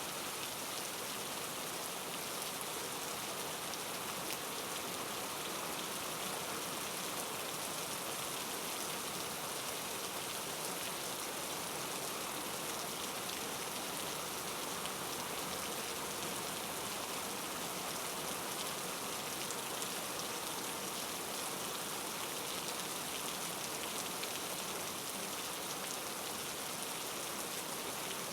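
Steady rain falling: an even hiss of many drops that holds at the same level throughout.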